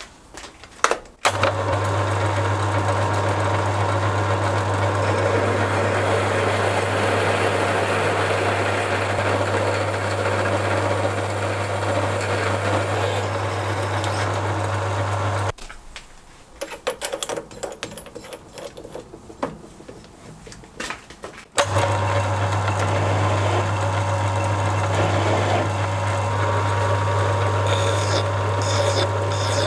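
Halifax 524 bench lathe starting about a second in and running with a steady motor hum while a drill bit in the tailstock bores into the part in the chuck. It stops about halfway, with scattered clicks and knocks of handling. Then it starts again and runs steadily, with a hand file rasping on the spinning work near the end.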